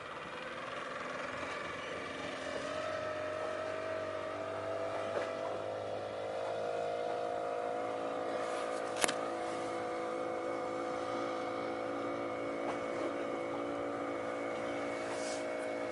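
An engine running steadily, its hum rising slightly in pitch a few seconds in and then holding, with a single sharp click about nine seconds in.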